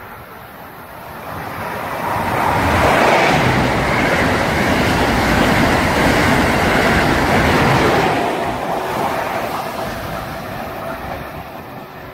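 Amtrak Acela Express high-speed electric train passing close by at speed: a rush of wheel and air noise that builds quickly, holds loud for several seconds as the cars go by, then fades away.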